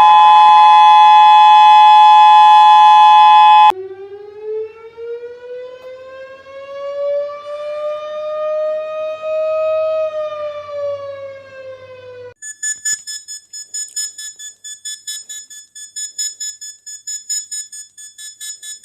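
A run of emergency alert alarm tones: first the loud steady two-tone Emergency Alert System attention signal, which cuts off about 4 seconds in; then a siren tone that slowly rises and falls in pitch; then a rapidly pulsing high beep over the last few seconds.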